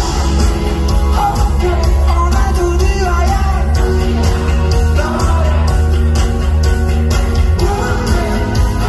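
Live concert music: a singer's amplified vocals over loud, bass-heavy backing with a steady beat, heard through a hall's PA.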